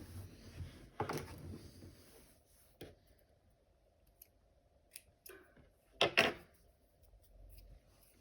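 Scissors snipping with a few sharp clicks, the loudest a quick pair about six seconds in, with light rustling of handling after the first.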